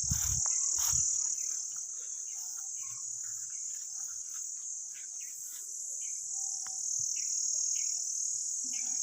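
Steady high-pitched chorus of insects, with scattered faint bird chirps over it and a few low thumps in the first second.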